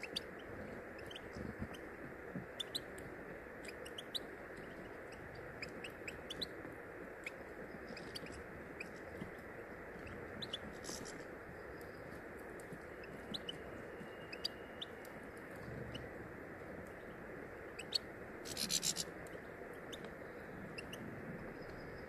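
European goldfinches feeding on a tray of sunflower seeds: frequent light clicks and taps of beaks picking at and cracking seeds, over steady background noise. A short, louder burst comes about three-quarters of the way through.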